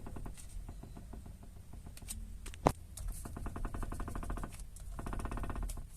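Rapid, light rattling and clicking from inside the steering column area of a Tata Altroz, with one sharper click a little under halfway and denser rattling in the second half. It is an unresolved fault that sounds like a loose plastic part inside, and the service centre has not yet found its cause.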